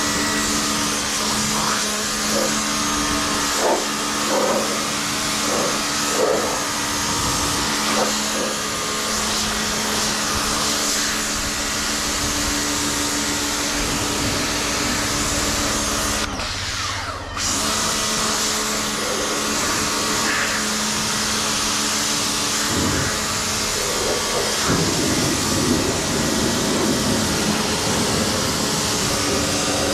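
Ingco 1400W electric pressure washer running, its motor humming steadily under the hiss of the water jet striking the car's body and wheels. The sound cuts out for about a second about halfway through, then carries on.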